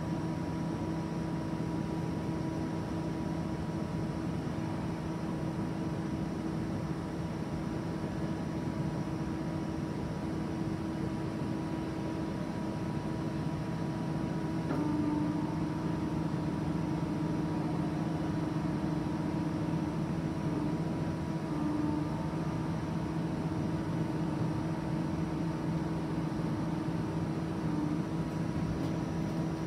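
Tos Hulin SKQ 12 NC vertical turret lathe running, a steady machine hum with a few held whining tones that shift slightly about halfway through.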